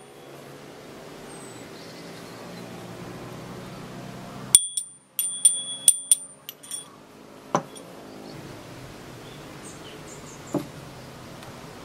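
A metal spoon clinks quickly against a small dish, about eight ringing taps at the same pitch over two seconds, followed later by two lone soft knocks. A faint low hum runs underneath.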